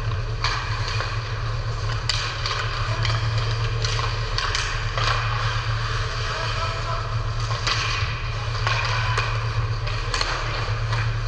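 Hockey play: sharp clacks and knocks of sticks, puck and boards come every second or so, some with a brief scraping hiss, over a steady low hum.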